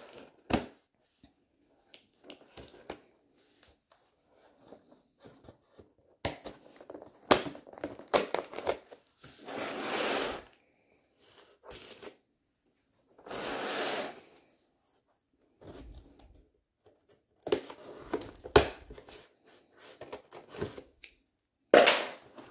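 Scissors slitting the packing tape on a cardboard box and the cardboard being torn and pulled open: scattered snips, scrapes and knocks, with two longer rips about ten and fourteen seconds in.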